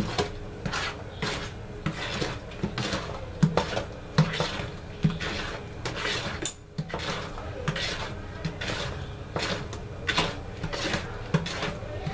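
Wooden spoon stirring a wet bread-and-milk cake batter in a large bowl, scraping and knocking against the sides about twice a second, with one sharper click about halfway through.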